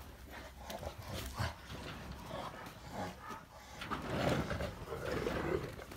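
Dogs making low vocal sounds, with scattered knocks and scuffles; the sounds grow louder about two thirds of the way in.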